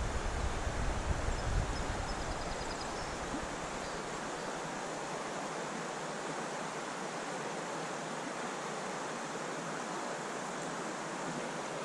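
Steady rushing of flowing creek water, with wind buffeting the microphone as a low rumble for the first few seconds before it drops away.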